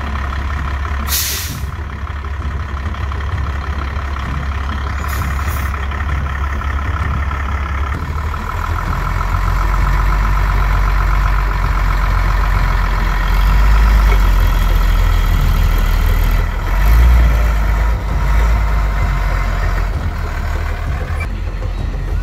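A heavy 4x4 camper truck's engine running under load as it crawls over rough ground, its low rumble growing louder about eight seconds in. A short hiss of air comes near the start.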